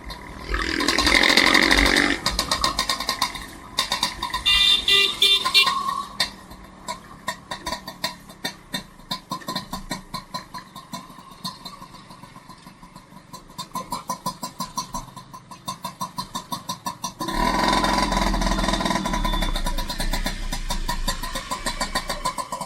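Small vehicle engine, motorcycle-like, running with a fast, even pulsing beat. It swells louder briefly about a second in, and again for the last five seconds or so.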